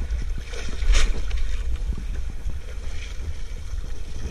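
Wet crab gill net being hauled by hand out of the sea over a small boat's side, with water splashing and dripping, one sharper hit about a second in, and a low rumble of wind on the microphone.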